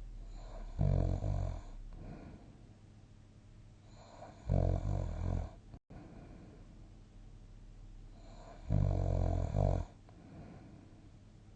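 A sleeping person snoring: three loud snores about four seconds apart, each about a second long, with quieter breathing between them.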